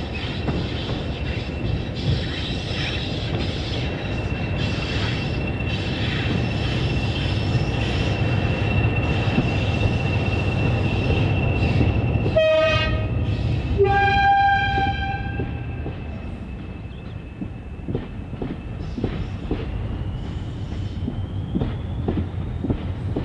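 Class 20 diesel locomotive's English Electric eight-cylinder engine working hard under power as it hauls a train past, a steady high whistle over the rumble. About halfway through the two-tone horn sounds twice. The engine then fades, leaving the clicking of the coaches' wheels over the rail joints.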